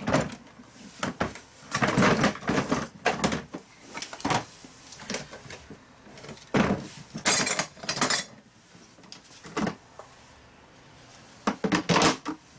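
Hard plastic Keter Connect toolbox and organizer clattering and knocking as they are lifted apart and set down, in several separate bursts. Near the end comes a quick run of sharp clacks as the toolbox's latches are snapped open and the lid is raised.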